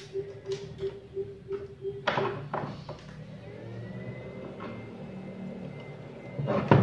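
A 6-FET inverter under test on a heater-tube load buzzes in quick pulses, about four a second, until a click about two seconds in stops it. Then come a couple of handling knocks and a faint thin whine, with a loud knock near the end as the unit is moved on the bench.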